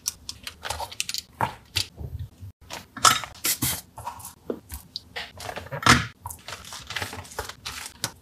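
Irregular small clicks, taps and crunches from hands handling a drum machine's circuit board and its wiring, with flush cutters snipping soldered component leads on the underside of the board.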